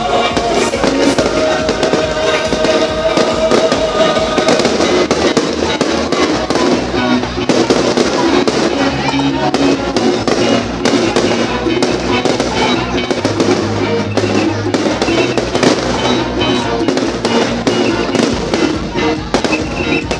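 Fireworks bursting in quick, dense succession, with music playing at the same time.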